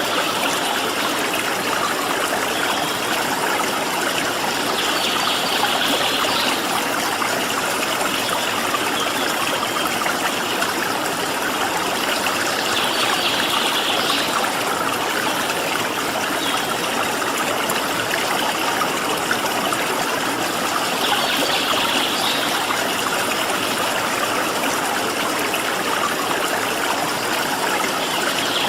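Stream water flowing steadily with a dense rushing and trickling, and short, high bird calls coming through about every eight seconds.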